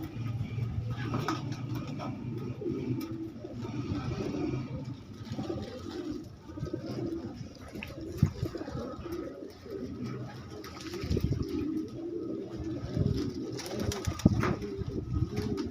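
Pigeons cooing, low rolling coos repeating and overlapping without pause. There is a sharp knock about halfway through and another near the end.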